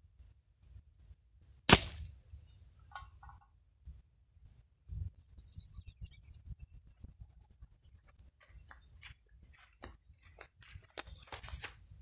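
A single sharp crack from a 5.5 mm air rifle shot striking a tin-can target, about two seconds in, with a brief ringing tail. After it come a few faint knocks and rustles.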